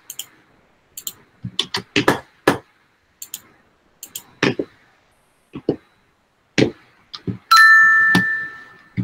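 Scattered short clicks and taps, then about seven and a half seconds in a two-tone chime rings out loudly and fades over about a second and a half.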